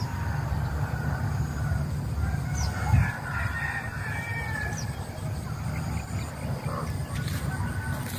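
A rooster crowing once, a drawn-out call about three seconds in, over a steady low rumble with a brief thump near the start of the crow.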